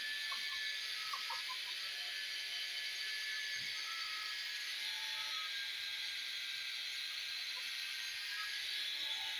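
Electric angle grinder with a foam polishing pad running steadily, buffing the paint on a motorcycle fuel tank, with a high, even hiss.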